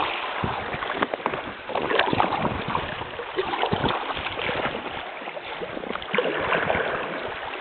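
Paddle strokes from an inflatable kayak on a river: the blades splash in and out of the water and drip, with many small irregular splashes and clicks.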